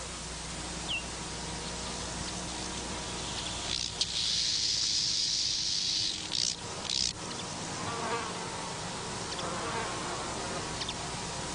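Insect buzzing in an outdoor field recording: a high, hissing buzz for about two seconds in the middle, then two short bursts, over steady tape hiss and low hum.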